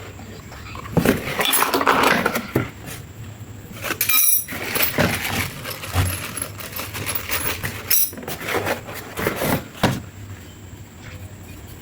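Small metal parts clinking and knocking as they are handled, in irregular bursts. No power tool is running.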